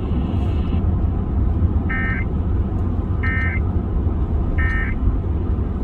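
Three short, identical data bursts of an Emergency Alert System end-of-message code, about 1.3 seconds apart, marking the close of the alert. A steady low rumble runs underneath.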